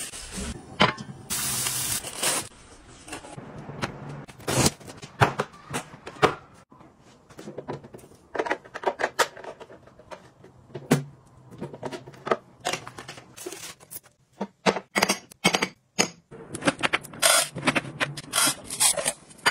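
Close-up handling noises: plastic wrap crinkling as a new pan is unpacked, then a long run of sharp clicks and knocks from plastic storage containers, their lids and a rotating grain dispenser being opened and turned.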